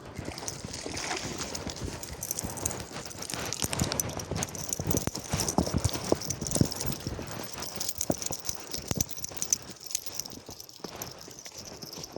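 Footsteps walking over the forest floor: an irregular run of short crunching steps over a steady high hiss.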